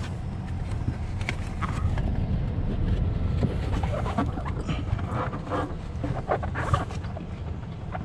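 Rustling and scraping as a wire is pushed by hand under a car's floor carpet, with irregular clicks and a few sharper knocks, over a steady low rumble.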